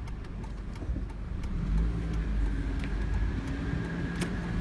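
A car's engine running with a steady low rumble and a few faint clicks.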